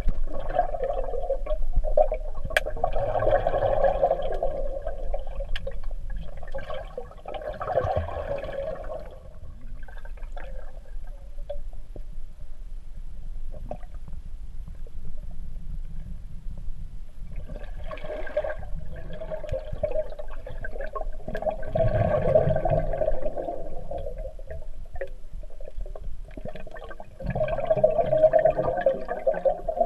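Underwater swimming-pool ambience: muffled churning and bubbling of water stirred by a swimmer, coming and going in stretches, with a quieter spell of several seconds in the middle.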